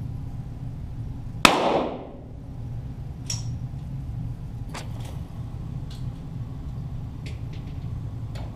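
A single .22 Walther GSP target pistol shot about a second and a half in, a sharp crack with a short echoing tail, followed by a few faint ticks over a steady low hum.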